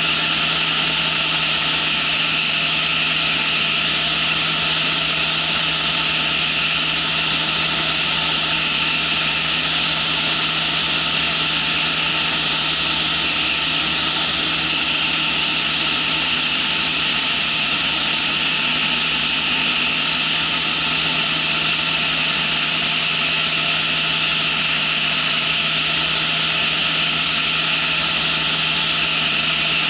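Ultralight trike's engine and propeller running steadily in flight: an even drone with a loud hiss of rushing air.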